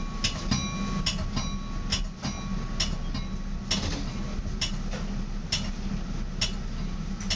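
Metra commuter train cab car riding the rails: a steady low rumble with sharp clicks about twice a second, and a faint steady high tone that stops about halfway through.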